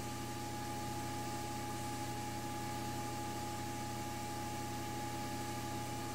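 Steady electric hum of an incubator's fan, with a constant thin tone above it and light hiss.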